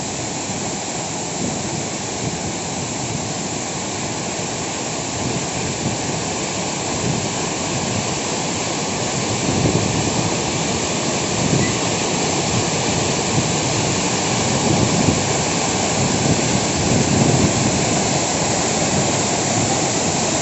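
Waterfall: a steady, loud rush of falling water that swells slightly now and then.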